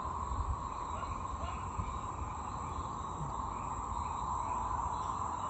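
Chorus of many frogs calling at once from a lagoon, a dense, steady din with scattered higher calls over it.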